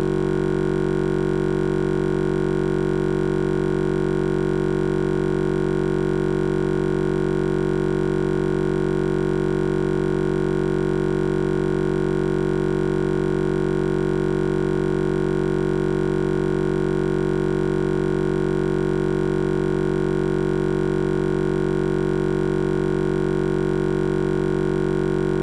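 A steady, unchanging electronic buzzing drone that cuts in abruptly in place of the speech: the audio track stuck on one tiny fragment repeating over and over, a playback or encoding glitch.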